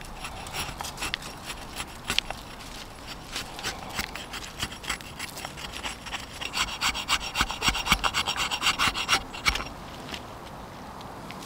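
A blade shaving thin curls off a dry wooden stick onto a board: repeated short scraping strokes that become quicker and denser past the middle, then stop about two seconds before the end.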